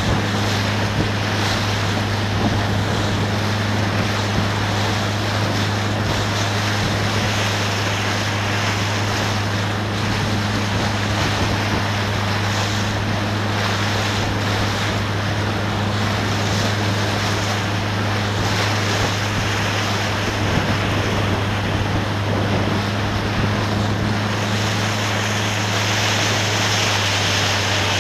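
Motorboat engine running at a steady speed, a continuous low hum, with wind noise on the microphone and the rush of water.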